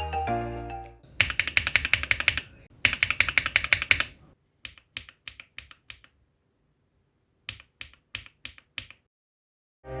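Mechanical keyboard with Akko CS Vintage White linear switches being typed on: two fast runs of keystrokes, then slower single keypresses, a pause, and a few more presses. Background music fades out in the first second.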